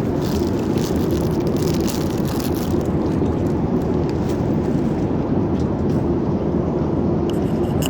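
Steady rumbling noise inside an airliner's cabin in flight, with a few faint ticks in the first few seconds.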